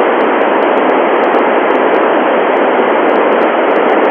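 Steady FM static hiss from an Icom IC-9700 transceiver's receiver on a satellite's FM repeater downlink, with no voice on the channel.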